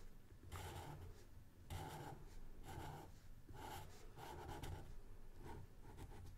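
Sharpie permanent marker scratching on drawing paper as it colours in a solid area, in a series of short strokes, each under a second, with brief gaps between them.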